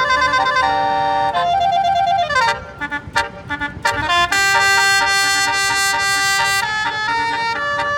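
Indonesian 'telolet' Basuri musical bus horn playing a tune: several horn tones sounding together in stepped notes, a falling slide about two and a half seconds in, a few short blasts, then a long held chord of about two seconds before the melody steps on.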